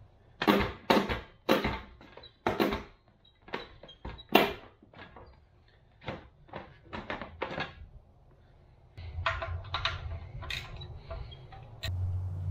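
Irregular knocks and plastic clatter as the seat of a Honda Z50R mini bike is wiggled and pulled off its frame, densest in the first few seconds. A low steady hum joins in for the last few seconds.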